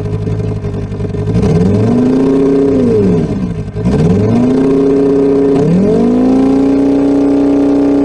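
Inline-nine engine exhaust idling, then revved: the pitch climbs, holds and drops back twice, and a third rev about three quarters of the way through is held high.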